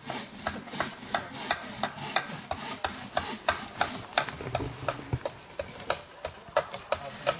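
Knives shaving wood in quick, repeated strokes, about two or three a second, as wooden canoe paddles are carved by hand.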